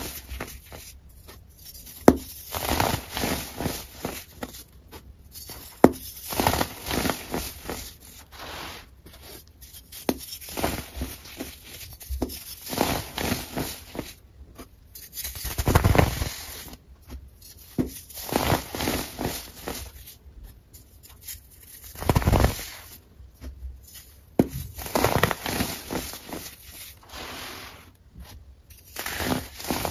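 Hands squeezing and crumbling compacted baking soda powder, a run of crackling crunches in bursts with short pauses between. Two heavier, deeper crunches come about halfway and about two-thirds through.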